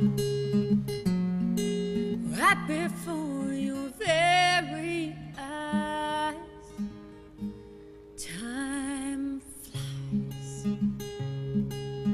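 A woman singing to her own acoustic guitar. The guitar keeps up a steady run of picked notes, and she sings a held, wavering phrase about two seconds in and another shorter one around eight seconds, with guitar alone between.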